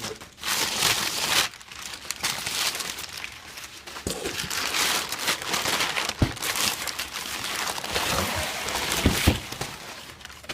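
Packing material being crumpled and pulled out of a box: a continuous rustling and crinkling that swells and fades unevenly.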